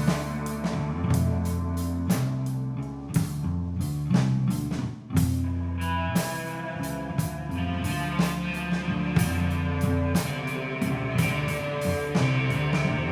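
Rock trio playing an instrumental: guitar, bass guitar and drum kit, with steady drum hits under sustained bass notes and a short break about five seconds in.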